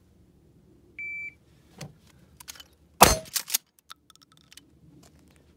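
A shot timer's start beep, then about two seconds later a single blast from a 12-gauge Mossberg Shockwave pump gun firing 00 buckshot, followed by a few quick clacks.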